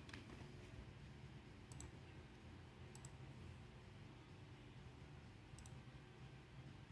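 Near-silent room tone with about three faint, sharp clicks a second or more apart, from someone clicking through menus on a laptop.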